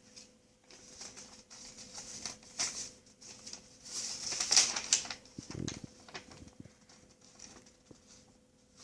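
Packaging and plastic toy parts being handled and taken out of a box: scattered light clicks, taps and rustling, loudest about halfway through, over a faint steady hum.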